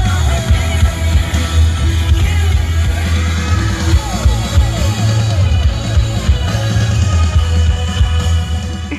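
Background rock music with singing and a heavy bass line, cutting off suddenly at the end.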